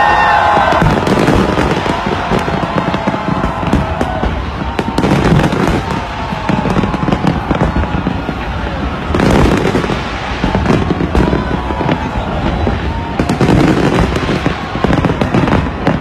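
A big aerial fireworks display going off, a continuous run of bangs and crackling that swells louder several times. Voices from the crowd shout over it near the start.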